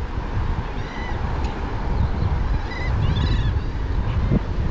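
Wind buffeting the microphone, with a few short, arching calls of seabirds over it: one about a second in and a cluster around three seconds in.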